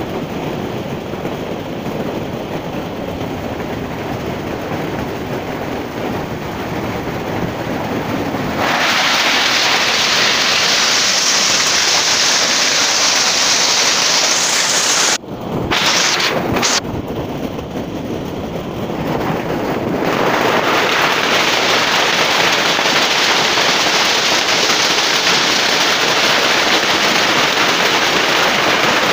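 Heavy hail pelting corrugated metal sheeting and the ground as a dense, steady clatter. It grows much louder a third of the way in, drops out briefly in the middle, and comes back loud.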